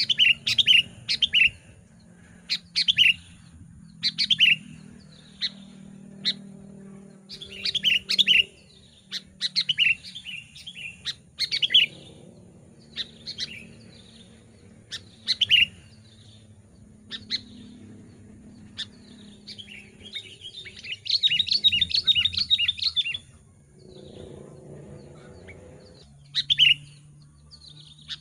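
Sooty-headed bulbul singing: short, loud whistled phrases repeated every second or two, with a fast run of rapid notes about three-quarters of the way through.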